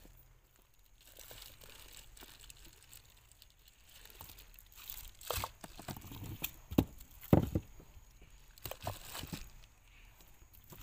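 Plastic rustling and crinkling with scattered knocks, as a large catfish and plastic-wrapped ice blocks are packed into a styrofoam cooler. Two sharp, louder thumps come a little past the middle.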